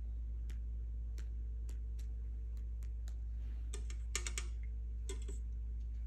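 Faint single ticks roughly every half second over a steady low hum. About four seconds in comes a short, louder rattle of clicks, and just after five seconds a briefer one.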